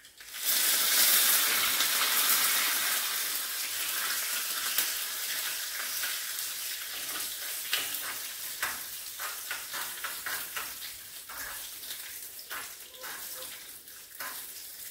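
Curry leaves and dried red chillies tossed into hot oil and mustard seeds in a small tempering pan, bursting into a loud sizzle about half a second in. The sizzle slowly dies down with scattered crackles as the pan is stirred.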